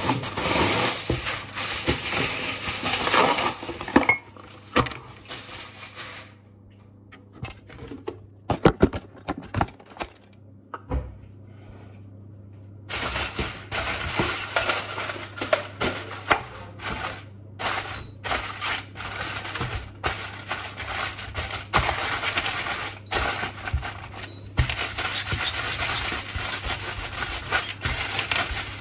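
Kitchen food-preparation handling: rustling with scattered clicks and knocks, dying down for several seconds in the middle and picking up again, over a steady low hum.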